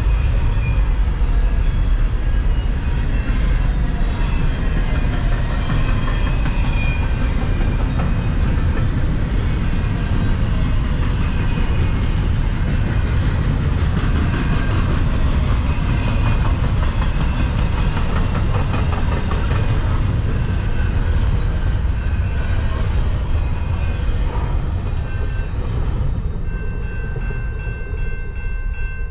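Double-stack intermodal freight train rolling past: a steady rumble of steel wheels on rail as the container cars go by. It eases slightly near the end as the last cars pass, and a thin steady whine appears over the final seconds.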